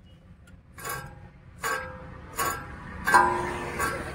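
Worn front wheel hub bearing being turned by hand, giving a series of sharp metallic ticks with a short ring, about one every three-quarters of a second. This is the noise of a bearing that has gone rough.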